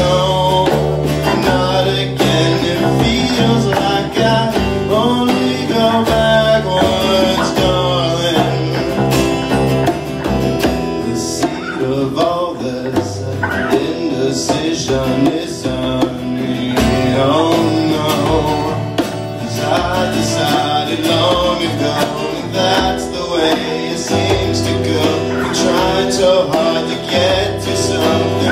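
Live acoustic band music: a strummed acoustic guitar and hand drumming on a djembe, with a man singing over them.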